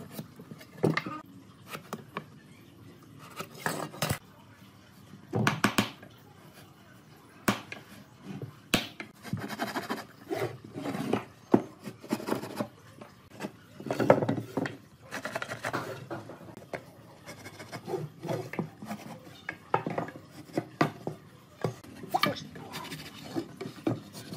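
Irregular knocks, clatters and short scrapes of wooden pallet boards and hand tools being worked and handled, with a few sharper, louder knocks near the middle.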